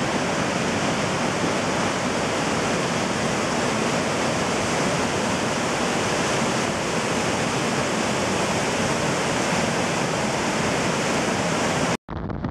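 Steady rush of the Pemigewasset River's rapids pouring through The Basin's granite channel, cutting off abruptly near the end.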